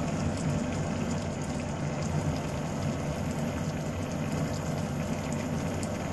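Pumpkin and green bean lodeh simmering in a wok, a steady bubbling and crackle of the broth while coconut milk is poured in.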